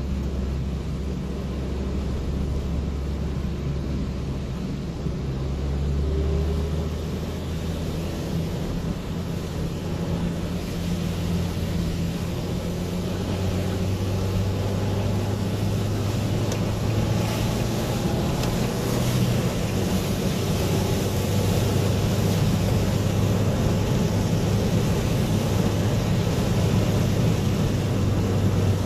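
Car heard from inside the cabin while driving on a wet road in the rain: a steady engine hum under the hiss of tyres on wet asphalt. The engine note steps up higher about seven seconds in, and the wet hiss grows stronger in the second half.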